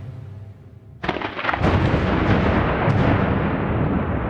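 Music fades out, then about a second in a sudden crackling crash of thunder breaks into a long, steady rumble.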